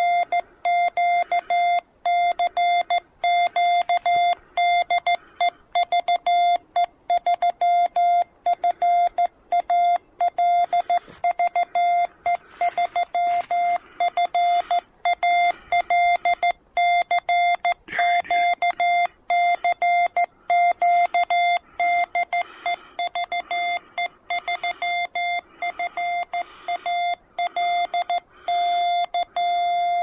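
Morse code (CW) tone from a YouKits HB1B MKII QRP transceiver, a single steady beep keyed on and off in dots and dashes over faint band hiss.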